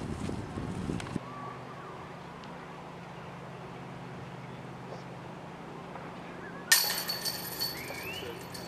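A putted disc hits the hanging chains of a metal disc golf basket: a sudden jangle of chains about two-thirds of the way in that rattles and rings for about two seconds. It is the sound of a made putt, with the disc caught and dropping into the basket.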